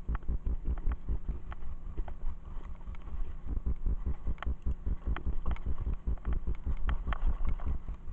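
Mountain bike ridden over a rough trail and wooden boardwalk, heard from a handlebar-mounted camera. Low wind rumble on the microphone, with a constant irregular clatter of knocks and rattles from the bike and its tyres jolting over the bumps and slats.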